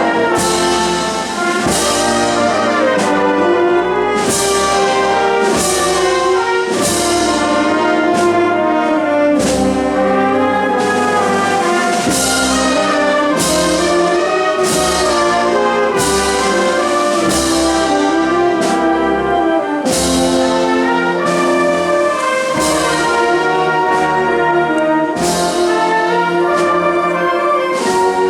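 Spanish wind band (banda de música) playing a slow processional march: a brass melody of trumpets and trombones over steady drum and cymbal strikes about once a second.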